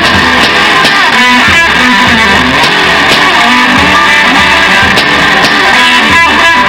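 Loud rock music: an instrumental passage led by guitar, over steady bass notes and drum hits.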